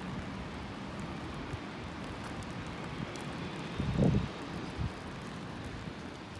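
Wet-street city ambience: a steady hiss of traffic on rain-soaked pavement. About four seconds in, a brief low buffet of wind hits the microphone.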